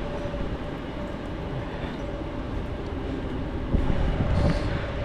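Wind buffeting the microphone with rain: a steady rumbling rush of noise with a faint steady hum underneath, louder for a moment about four seconds in.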